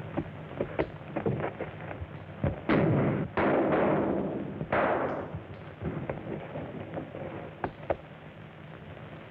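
Gunfire on an old film soundtrack: a run of sharp shots, with several loud cracks close together in the middle that ring out and fade, among lighter pops and crackle.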